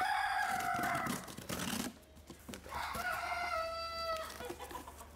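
A rooster crowing twice, each crow a long call of about a second and a half with a slightly falling pitch, about a second apart.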